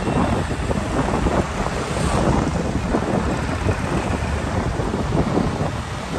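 Wind buffeting a microphone that is moving through street traffic, with the engines of the surrounding motorcycles running underneath.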